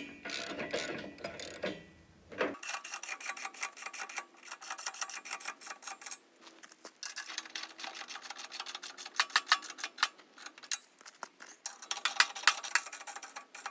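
Hand socket ratchet clicking in quick runs as bolts are snugged down, with light metal clinks of tools and hardware.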